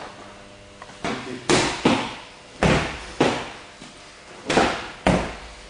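Blows landing on a handheld strike pad: a light one about a second in, then six hard smacks in three quick pairs, each pair about half a second apart, each smack dying away with a short echo.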